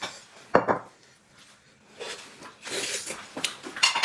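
Dishware knocking once on a table about half a second in, then soft clicks and rustling of eating with chopsticks.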